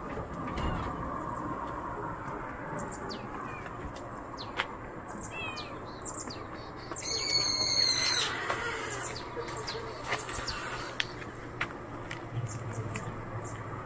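Wild birds calling outdoors: scattered short, high chirps that slide down in pitch, and one louder, shrill drawn-out call about seven seconds in.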